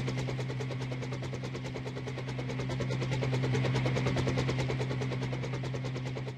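A small electric RC helicopter, the Double Horse 9053, running its motors and rotors. It makes a fast, even chopping rattle over a steady hum, and cuts out and dies away right at the end.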